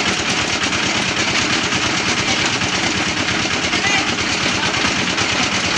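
Homemade hammer-mill rock crusher running with a steady, loud clatter as stones poured in from a sack are crushed by its spinning hammers.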